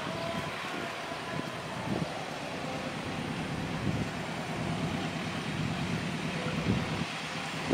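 Steady vehicle rumble with a faint low hum, holding at an even level.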